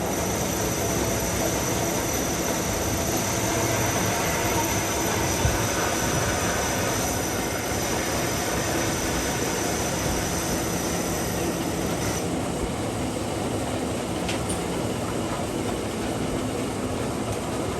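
Metal lathe running while turning an iron bush, a steady machine sound with a thin high squeal from the cutting tool that stops about twelve seconds in.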